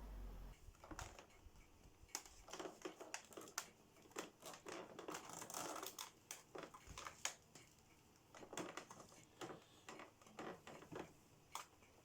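Faint, irregular clicks, knocks and rustling of things being handled and moved; the upright vacuum cleaner's motor is not running.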